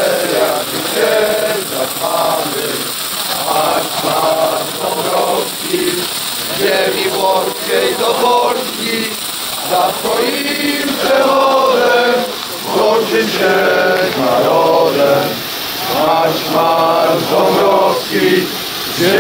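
A crowd of men singing together in unison, in long held phrases.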